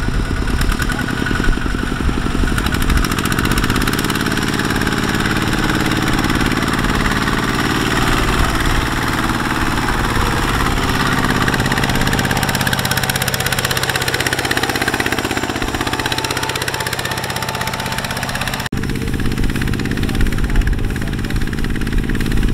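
Kubota power tiller's single-cylinder diesel engine running steadily under load as it pulls a loaded trailer through mud. Its pitch sags and comes back up about midway.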